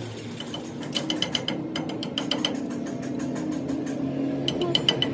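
Rapid metallic ratcheting clicks, about ten a second, starting about a second in, over a steady low machine hum.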